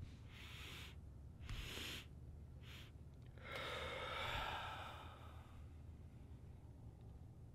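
A man breathing out in three short, faint breaths, then a longer sigh about three and a half seconds in.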